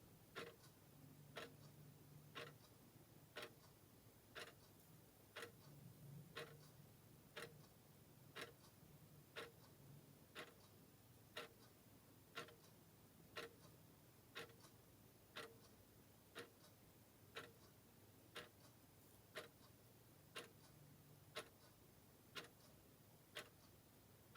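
Clock ticking steadily and quietly, about one tick a second, over a faint low hum.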